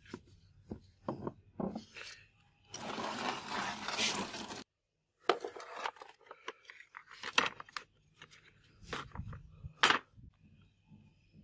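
Liquid splashing and running off as a steel bill hook blade is lifted out of a soaking bath, then several sharp knocks of the blade being set down and shifted on a plastic tray, the loudest near the end.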